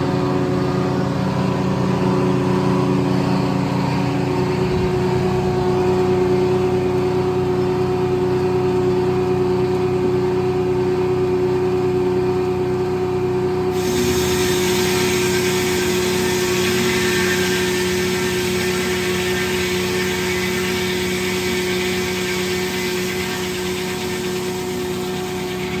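Corley circle sawmill running with a steady engine and blade hum. About halfway through, a sudden hissing cutting noise joins in as the circle saw enters a pond-soaked white oak log.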